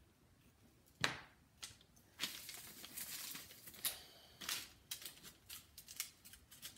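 Clay tiles and tools handled on a work board: a sharp click about a second in, a stretch of scraping and rustling, then a run of light clicks and taps as the small clay pieces are moved and set down.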